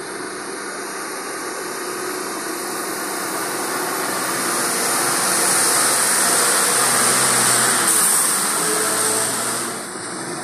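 Heavy cargo truck's engine pulling along a deep, muddy dirt road, growing louder as the truck comes up and passes close by, then falling away sharply near the end as it moves off.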